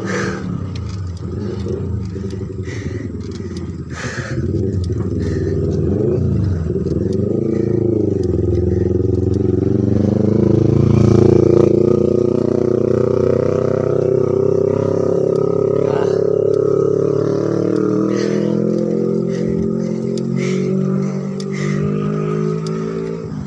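Motorcycle engine climbing a hill, its pitch rising and falling through the first several seconds, then holding a steady note that slowly rises. It is loudest around the middle, with a few brief clicks.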